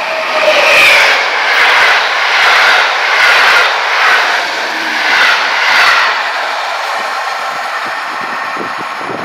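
Passenger train hauled by an EP07 electric locomotive passing at speed: a loud rush of wheels on rails that swells and dips in a steady rhythm as each coach goes by. After about six seconds it eases into a fading rumble as the train draws away.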